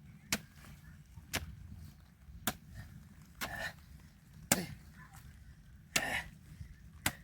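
Jembe (hand hoe) chopping into the soil in a steady rhythm, seven strikes about one a second.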